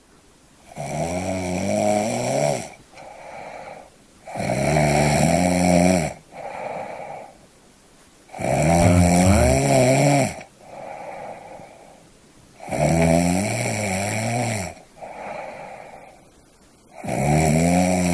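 A person snoring in a steady rhythm: five loud snores about four seconds apart, each followed by a shorter, quieter sound before the next.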